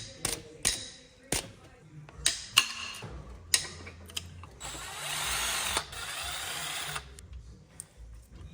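Several sharp metallic clinks and knocks of tools and engine parts, then a power tool runs for about two seconds, about halfway through, during the teardown of a 6.0 L LS engine.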